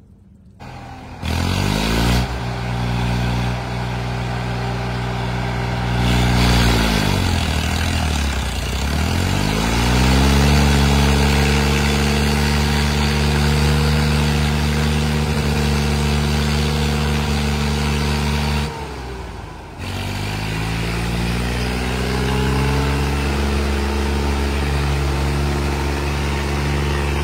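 Swaraj 855 tractor's three-cylinder diesel engine working hard under a heavy trailer load, enough to lift the front wheels off the ground. The engine note sags about seven seconds in and climbs back, then drops briefly again a little past the middle before rising.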